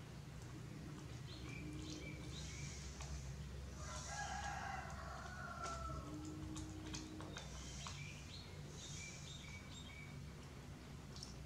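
A rooster crowing once about four seconds in, with small birds chirping on and off, over a steady low hum.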